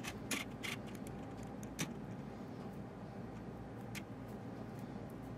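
Steady low background hum with a few short, soft clicks and rustles from hands folding and pinching a filled samosa pastry shut.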